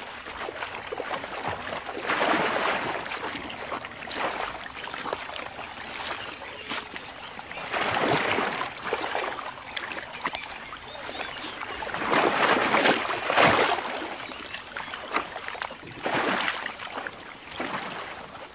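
Water and mud splashing in several loud surges as a mass of crocodiles thrash in a shallow muddy pool.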